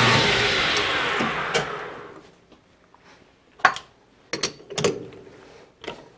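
A 12x36 import metal lathe coasting down to a stop after a facing cut, its running noise dying away over about two seconds. Then come a few sharp metal clicks and knocks as the three-jaw chuck is loosened to free the workpiece.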